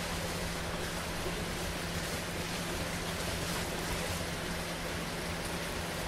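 Heavy rain falling as a steady hiss, with a faint low hum underneath.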